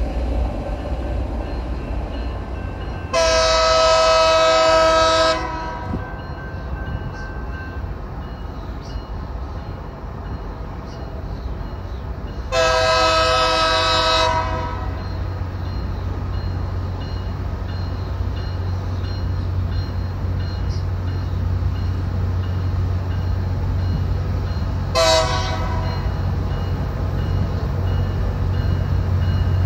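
Loram rail grinder train's multi-note air horn sounding three times: two long blasts about nine seconds apart, then a short one. Under the horn runs a steady low rumble from the train that grows louder in the second half.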